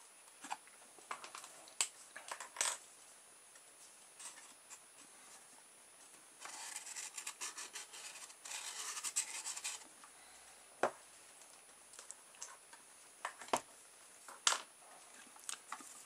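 Scratching and rubbing of a cardboard chassis and plastic parts being handled on a desk, with scattered light clicks and taps. A longer stretch of scratchy rubbing runs from about six and a half to ten seconds in.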